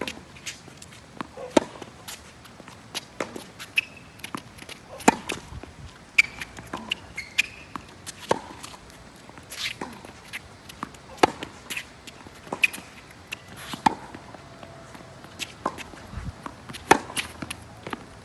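Tennis balls struck by rackets and bouncing on the court during a rally, with sharp hits coming every second or so, some much louder than others, and a few short high squeaks in between.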